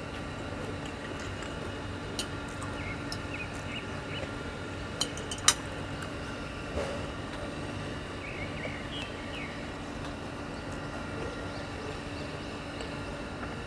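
Steady background hum with a few sharp clinks, one about two seconds in and a quick cluster of three near the middle, typical of hard shells or tableware knocking during a meal.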